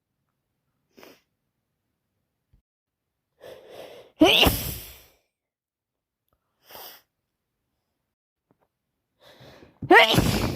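A woman with a heavy head cold sneezing twice, about four seconds in and again near the end. Each loud, sudden sneeze comes after a short in-breath, with faint sniffs in between.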